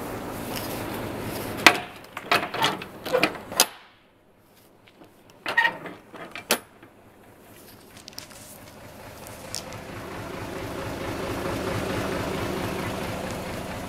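A run of sharp clicks and knocks in the first few seconds and again briefly around six seconds in. Then a steady vehicle engine hum swells, loudest about twelve seconds in, and eases off.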